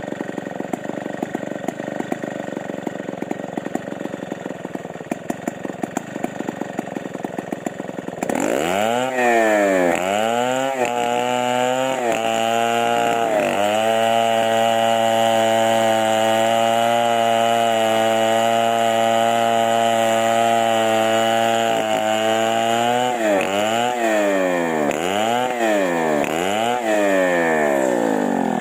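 Two-stroke chainsaw engine idling unevenly, then revved hard about eight seconds in with a few quick blips of the throttle. It is held at a steady high rev for about nine seconds, then blipped up and down several times and let fall back toward idle near the end.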